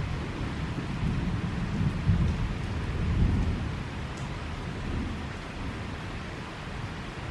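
Thunder rumbling low over steady rainfall. The rumble swells about a second in, peaks for a couple of seconds and dies away, leaving the even hiss of rain.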